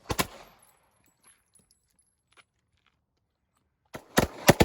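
Pistol shots on a shooting range: one shot just after the start, then about three seconds of quiet, then a quick string of three or four shots near the end.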